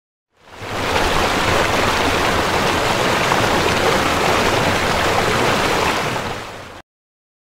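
Storm sound effect of heavy rain and rushing water: a steady hiss that fades in about half a second in and cuts off abruptly near the end.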